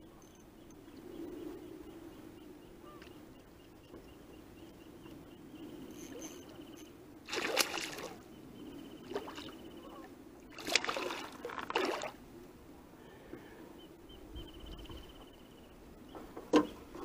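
Hooked fish splashing and thrashing at the surface beside a kayak, in two loud bursts about seven and eleven seconds in, over the steady ticking of a fishing reel being cranked. A sharp knock near the end.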